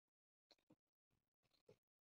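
Near silence, with a few faint mouth sounds of someone chewing noodle soup, about half a second in and again in the second half.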